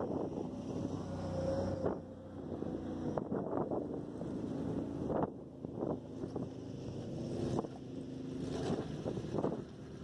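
Old pickup truck engine idling steadily, heard from a distance, with wind buffeting the microphone in gusts.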